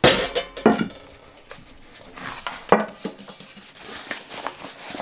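Stainless steel camp cooking pots clanking and knocking together as they are handled and separated, with a sharp clank right at the start and several lighter knocks after, along with rustling of a fabric sack.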